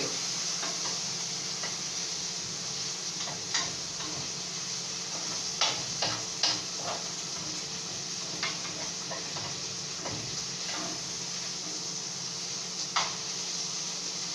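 Chicken sizzling in curry-flavoured oil in a pot, with a spoon stirring and knocking against the pot now and then.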